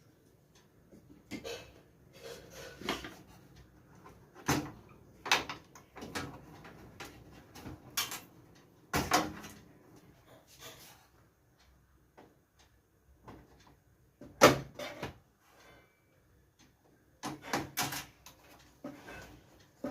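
Irregular knocks, clicks and scraping of desktop computer parts being handled during disassembly, with one sharp knock about fourteen seconds in.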